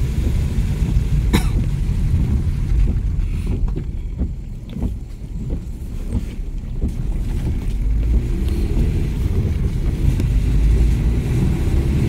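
Steady low rumble of wind buffeting the microphone on a moving vehicle, mixed with road and engine noise. It eases for a couple of seconds around four to six seconds in, with a single sharp click early on.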